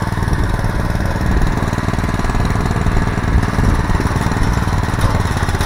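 Earthquake Victory rear-tine tiller's small gasoline engine running steadily, just after a cold start, with the throttle set about midway between turtle and rabbit.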